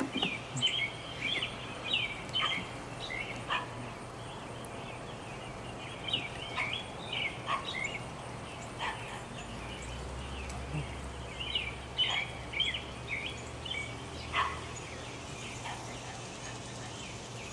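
Small birds chirping and chattering in quick bursts that come and go, with a few light knocks and a steady low hum underneath.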